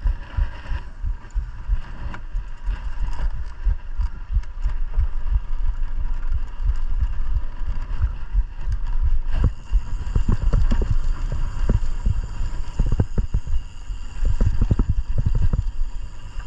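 Mountain bike riding down a rough trail: a steady low rumble with frequent thumps and rattles over bumps, much denser from about nine and a half seconds in.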